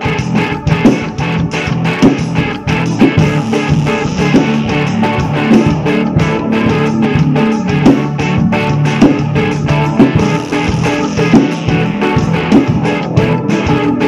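Rock drum kit played hard along to an instrumental rock track with electric guitar, the drums keeping a busy, steady pattern of strikes and cymbals over the guitar.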